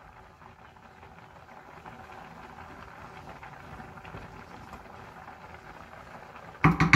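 Pot of lentils at a rolling boil on a gas hob, a steady bubbling hiss, while a wooden spoon skims off the foam. A short, loud clatter near the end.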